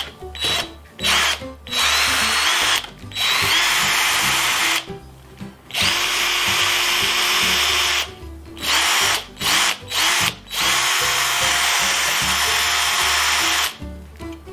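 Parkside PABS 20-Li G8 cordless drill motor whining as it runs free with no bit in the chuck. It starts with several quick trigger blips, then goes into runs of a few seconds each with short pauses and more quick blips between them, and the pitch rises as it spins up. The last long run stops shortly before the end.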